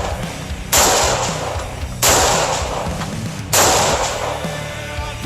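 Three rifle shots from an AR-15 in .223/5.56 with a muzzle brake, each a sharp crack that dies away over about a second, fired roughly a second and a half apart over a rock song with a steady beat.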